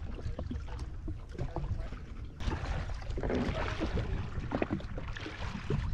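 Water slapping and sloshing against the hull of a jet ski drifting at sea, with scattered light knocks and a louder wash of splashing about three seconds in.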